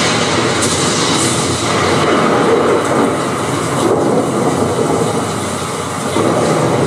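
Recorded storm of heavy rain, a steady dense rush played at full volume through the BenQ GV30 projector's built-in 2.1-channel speakers and subwoofer. It is very loud, easing slightly about six seconds in.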